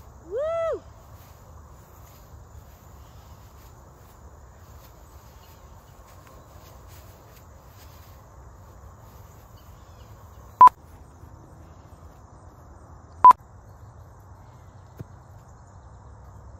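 A woman's cheer of "Woo!", then a steady chorus of insects in the grass. Two sharp, loud clicks about two and a half seconds apart break in a little past the middle.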